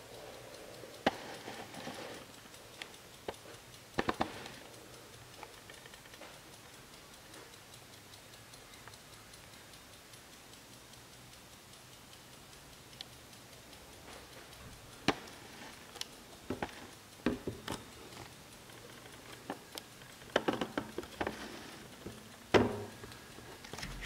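Le Castel Swiss mantel clock ticking faintly, with irregular louder clicks and knocks scattered through, most of them in the last third.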